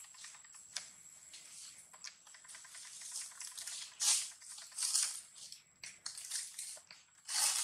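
Dry crackling and rustling of leaves and gravel, with louder hissy rustles about four, five and seven seconds in, over a thin steady high whine.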